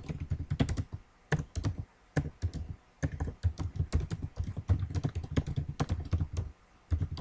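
Typing on a computer keyboard: quick runs of keystrokes broken by a few short pauses.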